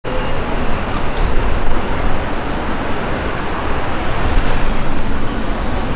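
City street traffic noise: a steady rumble of road vehicles passing.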